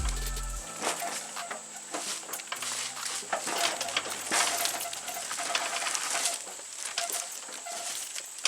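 A music bed ending within the first second, then scattered light clicks and clinks of hand work on metal mower parts.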